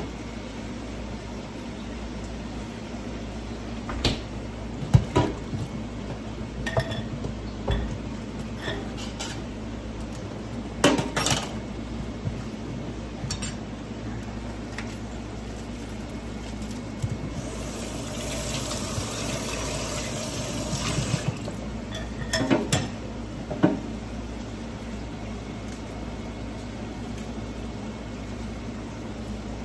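A spoon and other utensils clinking and knocking against metal cooking pots, in scattered separate strikes, with a few seconds of rushing hiss past the middle. A steady low hum runs underneath.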